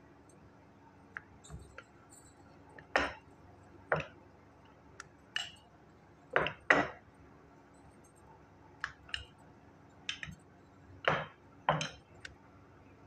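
Dough being rolled out with a wooden rolling pin on a marble countertop: a dozen or so sharp knocks and clinks at irregular intervals, with faint quiet in between.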